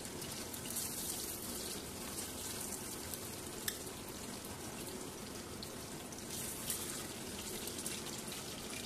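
Chicken frying in oil: a steady sizzle with fine crackles, and one sharp click about three and a half seconds in.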